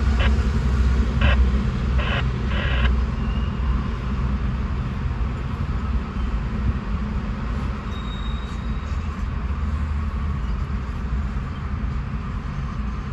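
Freight train tank cars rolling past, heard from inside a parked car: a steady low rumble, with a few sharp clacks in the first three seconds.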